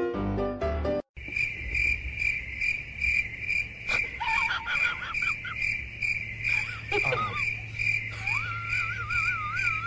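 A dog whining in short wavering tones, with a falling whine about seven seconds in and a long rising, wavering howl near the end. Under it runs a steady high chirping that repeats about three times a second. It opens with a second of piano music.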